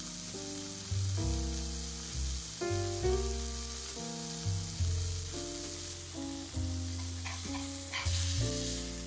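Ground-beef burger patty sizzling in fat in a cast-iron skillet, a steady hiss, over background music with bass and melody notes. Near the end a metal spatula scrapes under the patty to lift it.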